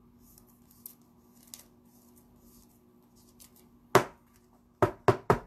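Faint rustling of a hockey card in a soft plastic sleeve being slid into a rigid plastic top loader, then five sharp taps of the card holder on the table near the end.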